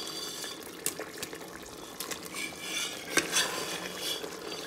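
Wooden spatula stirring thick pork curry in a pot: wet, sticky sloshing and scraping, with a few sharp knocks of the spatula against the pot.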